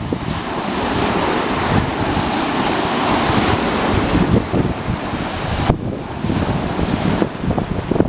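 Lake waves washing ashore while strong gusts of wind buffet the microphone. The rush swells about a second in and eases briefly near six seconds.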